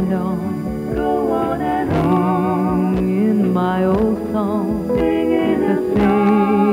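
1980s pop song: a woman singing a melody with vibrato over a band with guitar and a steady low beat.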